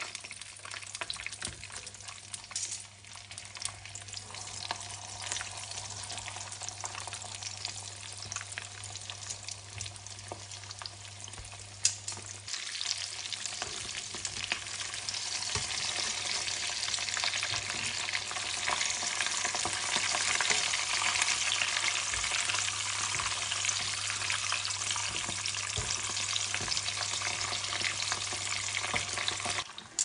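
Hot oil sizzling around sun-dried mackerel deep-frying in a wok. A sharp click comes about twelve seconds in, and after it the sizzling grows louder and denser.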